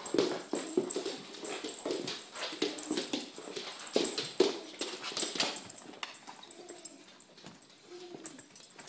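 A puppy's claws clicking rapidly on the floor as he prances about, mixed with short whines. The tapping is busiest in the first half and thins out after about six seconds.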